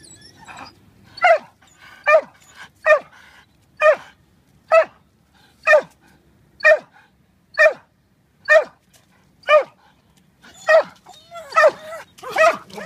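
Belgian Malinois barking steadily, about one bark a second, excited demand barks at a ring toy held up out of reach. The barks come quicker near the end.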